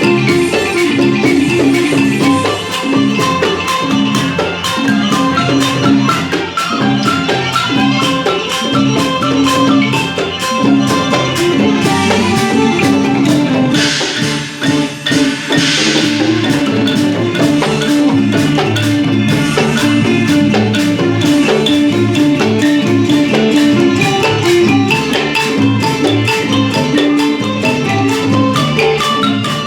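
Isan folk dance music led by a pong lang, the northeastern Thai log xylophone, playing quick running melody lines over a steady beat and bass. Two short hissing bursts come about halfway through.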